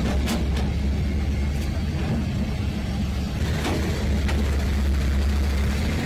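A steady low machine rumble with a few faint clicks.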